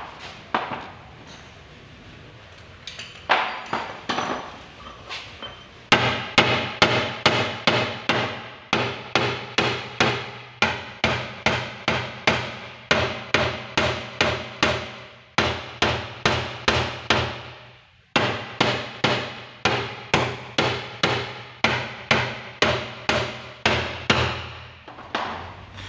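Hammer striking a punch against the fuel pump's lock ring on a steel fuel tank, each blow ringing metallically. A few scattered blows come first, then a steady run of about three a second with a short break about two-thirds through.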